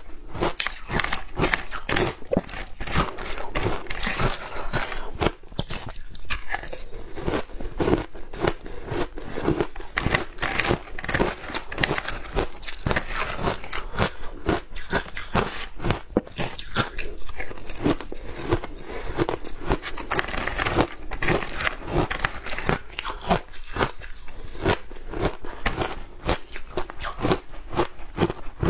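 Shaved ice being bitten and chewed close to a lapel microphone: a rapid, unbroken stream of crisp crunches and cracks.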